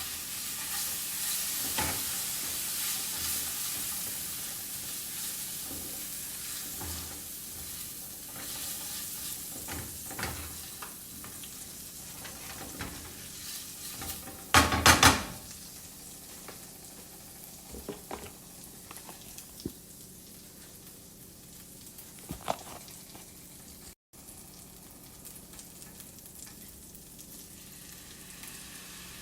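Food sizzling in a hot frying pan, the sizzle slowly dying down, with scattered utensil clicks and a short loud clatter of knocks about halfway through.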